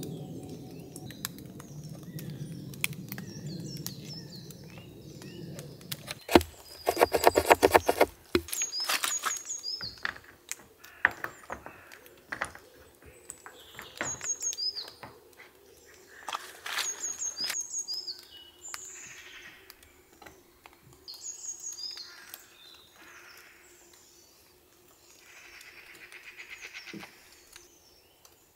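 Small birds chirping in woodland, with scattered knocks and handling sounds as a plastic gutter pipe is cut and fitted as a ridge cap on a wooden cabin roof. A loud burst of rapid scraping strokes comes about six seconds in.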